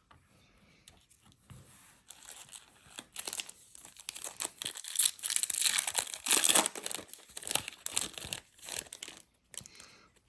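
A trading-card pack wrapper being torn open and crinkled: a dense crackling rustle that builds up a couple of seconds in, is loudest around the middle, and dies away near the end.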